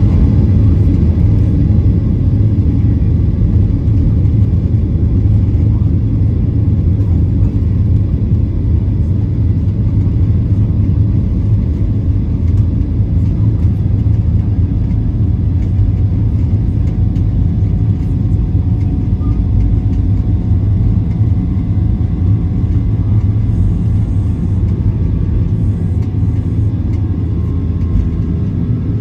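Jet airliner on its takeoff roll, heard from inside the cabin: the engines at takeoff power and the wheels on the runway make a loud, steady low rumble.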